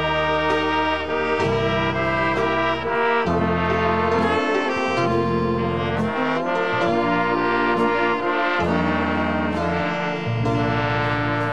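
Big band playing an instrumental break in a song, with no singing: saxophones and brass carry the melody over a steady bass line.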